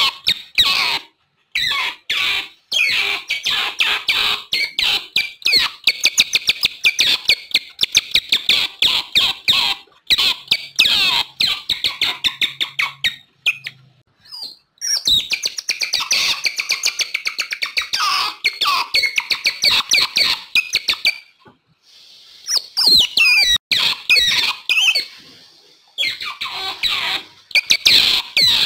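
Otters calling: rapid strings of high-pitched chirps and squeaks in bursts, broken by a couple of short pauses.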